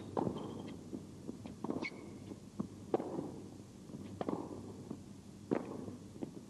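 Tennis rally: a ball struck back and forth by rackets, a sharp hit about every second and a half, with lighter ball bounces between the hits.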